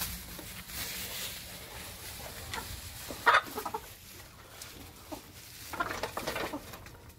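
Domestic hens clucking as they crowd a feeding trough for scraps, in short scattered calls, with one louder cluck about three seconds in and a flurry of clucks near the end.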